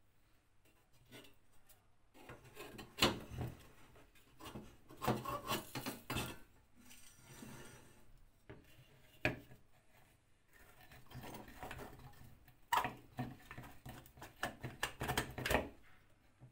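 Rusty metal parts of an old Demon Type 235 kerosene camping stove clinking, scraping and knocking as they are handled and taken apart: the pot-stand frame lifted off and set down, then the burner parts worked loose. Irregular clatter with several sharper knocks.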